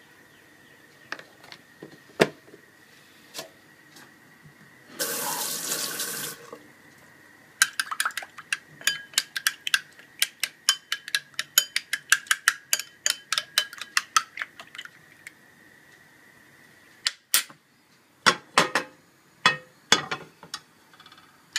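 A fork beating eggs in a ceramic bowl: a run of rapid clicks, about five strokes a second, lasting some seven seconds, after a short burst of hiss. A few louder knocks follow near the end.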